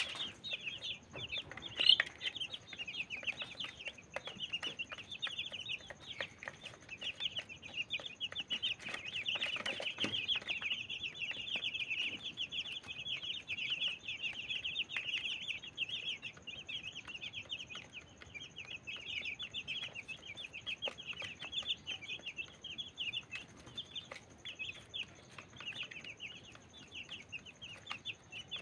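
A brood of young chicks peeping continuously, many rapid high chirps overlapping one another, with scattered light clicks as they peck at feed in a plastic feeder tray.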